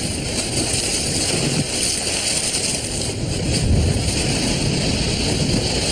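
Steady rushing of sea water and surf as a whale breaks the surface, churning the water.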